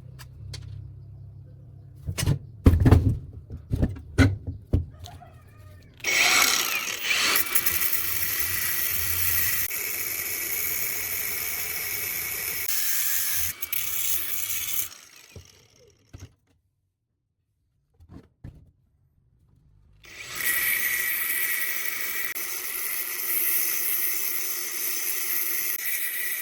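A few knocks and clatters, then a power tool running steadily with a high whine for about nine seconds. It stops, and after a few seconds' pause it runs again.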